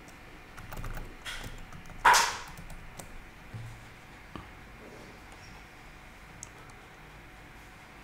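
Typing on a computer keyboard: a quick run of key clicks in the first two seconds, with a short, loud rush of noise about two seconds in. A single sharp click follows a little over four seconds in, and a fainter one later.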